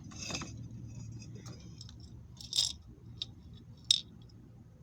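A few light, sharp clinks of small hard objects being handled, such as glass or coins, with the loudest about two and a half and four seconds in.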